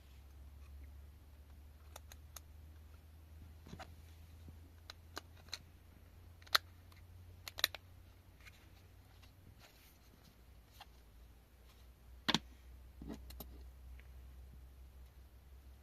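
Scattered small clicks and taps, the loudest about six and a half, seven and a half and twelve seconds in, from hands and small tools handling a toy phone. A low steady hum runs underneath.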